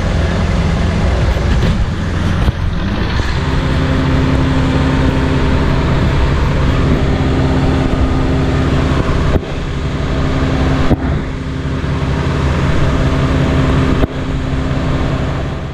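Diesel truck engine idling with a steady low hum, with a few sharp knocks scattered through.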